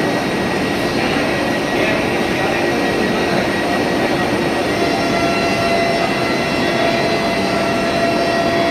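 Steady whir and hum of a stationary Vande Bharat Express electric train at the platform, running without a break.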